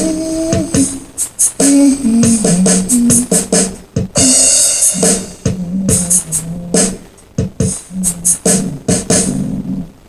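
Home-made music: a low stepping melody over a drum-machine-style beat, stopping right at the end.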